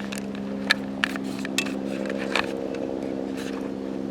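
An engine running steadily at idle, its hum growing slightly louder, with a few short sharp clicks in the first half.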